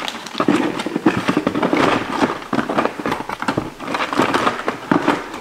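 Hands rummaging through a box of packaged fishing lures: plastic packaging crinkling and rustling, with many quick clicks and knocks at an uneven pace.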